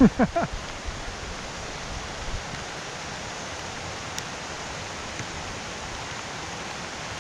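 Steady hiss of rain mixed with the rushing of a rain-swollen, flooding river.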